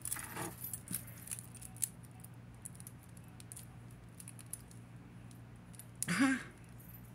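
Faint metallic clicks and jingles of a silver-tone chain bracelet being handled in the fingers, most of them in the first two seconds, over a steady low hum.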